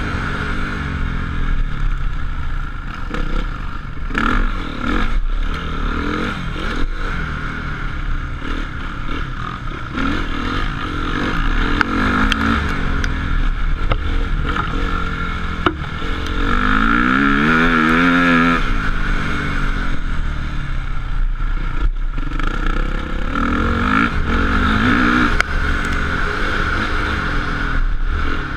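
Motocross bikes on the track, engines revving up and down through the gears as they go round, with one bike passing close and loudest about two-thirds of the way through.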